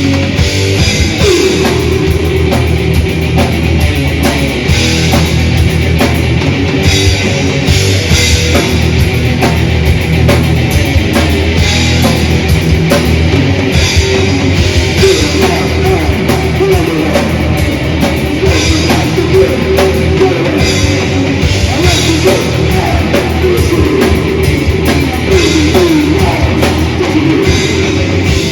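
Death/thrash metal band playing live: distorted electric guitars over bass and a drum kit, dense and unbroken throughout.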